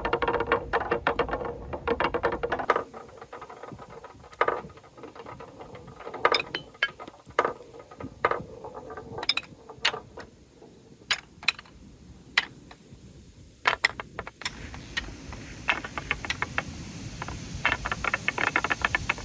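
Balls rolling and clattering down a wooden marble run: a dense, rapid rattle of clicks for the first few seconds, then separate knocks and clacks spaced out over the middle, and a dense rattle again from about fifteen seconds in.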